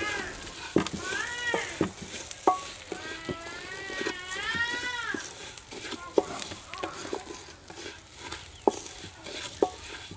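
Fennel seeds roasting in butter in an aluminium pan, stirred with a wooden spatula: a light sizzle with scrapes and taps of the spatula on the metal. An animal calls several times over it, the longest call about three to five seconds in.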